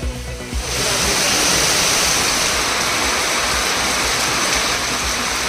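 Heavy rain pouring down, a steady dense hiss that sets in just under a second in and eases off near the end.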